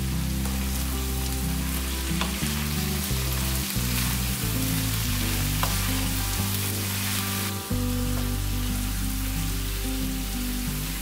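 Shredded cabbage and pork sizzling in a frying pan as a wooden spoon stirs it, with a couple of light clicks. Background music plays under it, a steady run of low notes.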